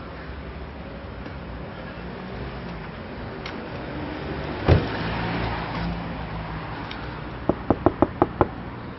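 A car engine running steadily with a low hum, with one loud thump about halfway through and a quick run of about seven sharp knocks near the end.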